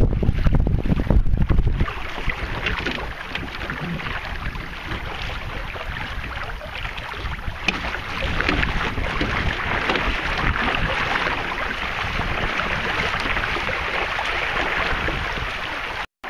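Wind buffeting the microphone and water rushing along the hull of an outrigger sailing canoe under way. A heavy low wind rumble fades after about two seconds, leaving a steady hiss of wind and moving water; the sound cuts out for a moment near the end.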